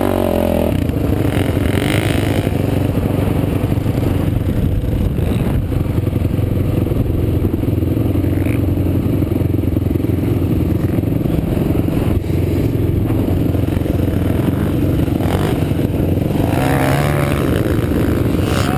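Sport ATV engine running under throttle as the quad is ridden over sand, the engine note dropping off just after the start and rising again around 17 s. Wind and rattle noise are heard on a helmet-mounted camera.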